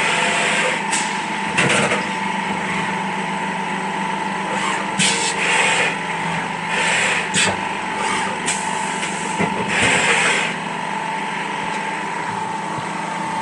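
CNC milling machine cutting with a 4 mm end mill: a steady spindle whine under the noise of the cut, with irregular louder hissing surges every second or two.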